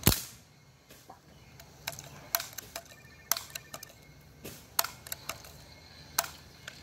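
A Crosman 760 Pumpmaster air rifle fires once with a sharp crack right at the start. A run of lighter mechanical clicks and taps follows, irregularly spaced.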